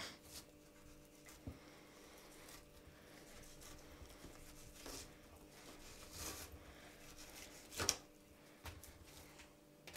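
Faint scraping of a long, flexible filleting knife drawn between fish skin and flesh against a plastic cutting board as a redfin perch fillet is skinned. There is a sharper tap on the board near the end.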